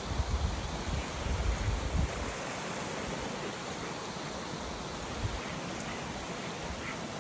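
Waterfall rushing in a steady, even hiss. Wind buffets the microphone during the first two seconds.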